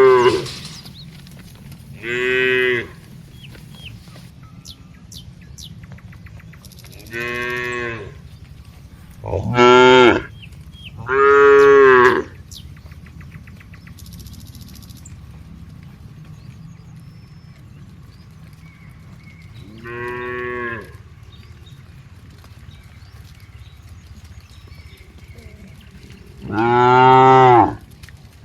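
Cows mooing one after another: about seven separate moos, each about a second long, with gaps of a few seconds between them, the loudest near the middle and at the end.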